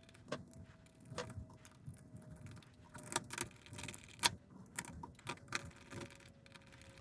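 Faint, scattered clicks and taps of hands and a small screwdriver on a 3D-printed plastic revolver frame as its screws are run in. A faint steady tone that slowly drops in pitch runs underneath.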